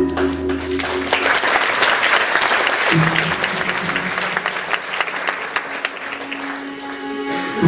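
Audience clapping and applauding as a music track ends, with quieter music carrying on beneath the clapping. The applause thins out near the end as new music comes in.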